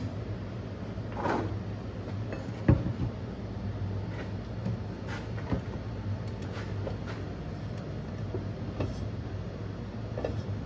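Scattered light knocks and clicks of parts being handled, with one sharper knock a little under three seconds in, over a steady low hum.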